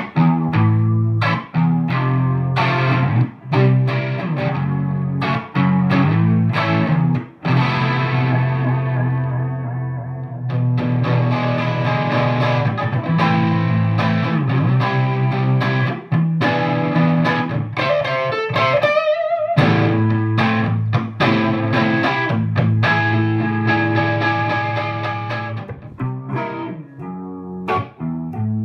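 Electric guitar played in stereo through two valve amplifiers, an R-V Brit-style amp (dry) and a Swart AST Pro combo with reverb, with a Boss CE-2W chorus pedal. The chorus is on at first and switched off partway through.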